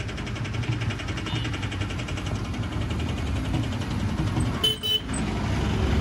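A road vehicle running with a steady low rumble, and a quick double toot of a horn near the end.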